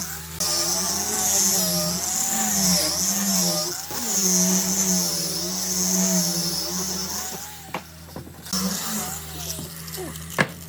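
Electric power-tool motor running, its pitch wavering up and down as it works, with short breaks and a quieter stretch about eight seconds in. A few sharp knocks come near the end.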